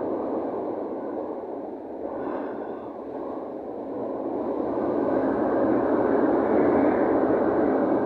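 Wind rushing over a cruise ship's open deck at sea, a steady whooshing that eases a little about two seconds in and swells again from about four seconds.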